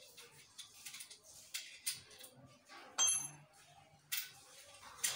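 Metal clicks and knocks as a satellite dish's metal bracket, arm and bolts are handled and fitted by hand. One short ringing clink about three seconds in is the loudest.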